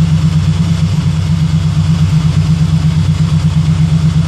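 Terminator Cobra supercharged 4.6-litre V8 in a Fox-body Mustang idling steadily while its cooling system is being burped of trapped air.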